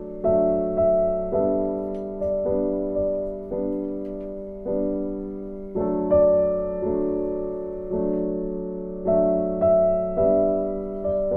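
Background piano music: a slow run of struck notes and chords, each one fading away before the next.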